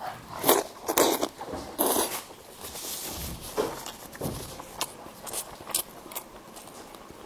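Close-miked eating sounds: irregular crisp crunches and clicks of food being bitten and chewed.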